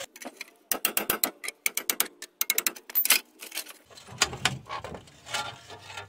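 Rapid metal clicks and rattles, then scraping, as a rusted front wheel hub and bearing assembly is worked loose and pulled out of the steering knuckle. The clicks come thickest in the first half.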